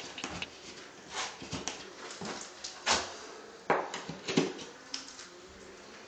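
Irregular clicks and knocks of wire-shelving hardware being handled, as plastic back clips are pushed into pre-drilled holes in the wall.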